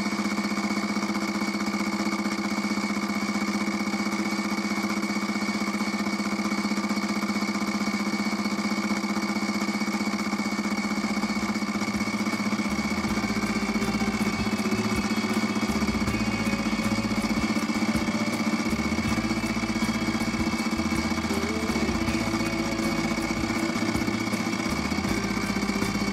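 Benchtop mini milling machine running with a fly cutter face-milling an aluminium disc: a steady motor and spindle hum with fast, fine ticking from the cutter's interrupted cut. A heavier low rumble joins about halfway through.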